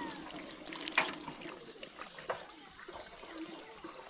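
Water trickling and splashing, with two light knocks about one and two seconds in.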